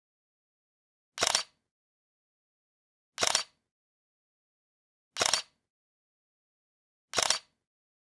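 Camera shutter sound effect, four identical clicks evenly spaced about two seconds apart.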